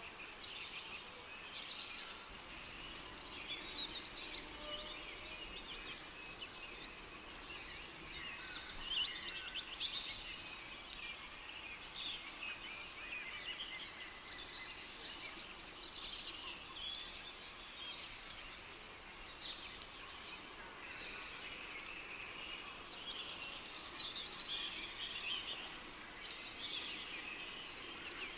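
Rainforest night ambience: a cricket chirps steadily in an even pulse of about three high chirps a second, with scattered bird calls and twitters over it.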